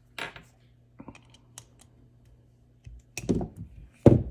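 Metal clicks and clacks from a Leatherman Surge multi-tool being handled and worked while its scissor pivot is checked for play. There are a few light clicks, then two louder knocks near the end.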